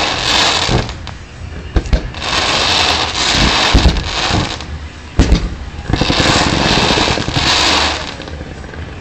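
Fireworks being fired: a few sharp bangs of shells launching and bursting, about two, four and five seconds in, among surges of hissing and rapid crackling from comets and fountains.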